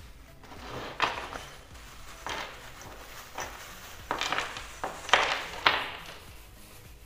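Small metal screws and bolts tipped out of a plastic bag and clattering onto a wooden tabletop, about six rattling clatters over several seconds, loudest about five seconds in.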